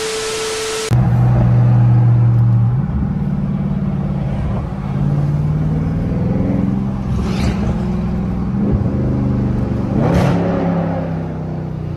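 A glitchy TV-static sound effect with a steady tone, lasting about a second. Then the Dodge Charger Scat Pack's 392 HEMI V8 runs through slow traffic, heard from inside the cabin, its pitch rising and falling as it picks up speed and eases off. There are two brief rushing sounds about seven and ten seconds in.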